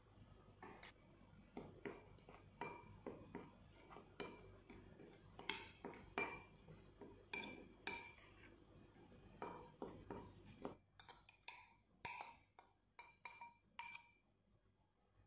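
Metal spoon stirring dry seasoned flour in a glass bowl, clinking and scraping against the glass in an irregular run of light ringing clinks. Near the end come more sharp clinks of spoon and glass as the flour is tipped onto a stainless steel plate.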